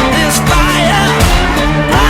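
Background song with singing over guitar and drums.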